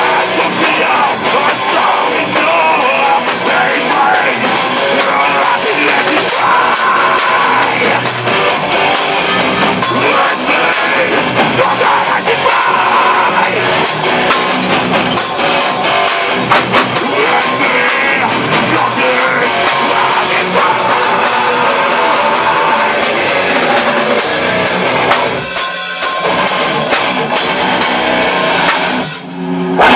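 Heavy metal band playing loudly, with drum kit and distorted guitars, and two short breaks near the end.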